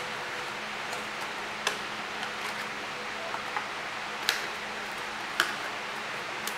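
Cardboard phone packaging being handled: a few sharp clicks and taps as the box's inner flaps are opened and the phone is lifted from its tray, the loudest about five seconds in, over a steady background hiss.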